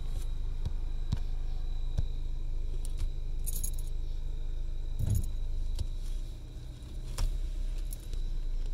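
Car engine idling at a stop, heard inside the cabin as a steady low hum, with scattered light clicks and two brief jingling rattles about three and a half and five seconds in.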